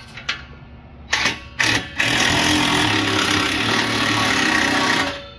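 Power ratchet running a nut down onto a spring-loaded exhaust flange bolt: a few clicks, two short blips about a second in, then a steady run of about three seconds that cuts off near the end.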